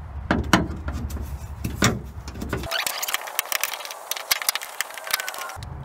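Small pry bar working against plastic clips and metal on the underside of a car hood: a run of irregular clicks, taps and short scrapes. A low hum runs underneath and drops out about halfway through.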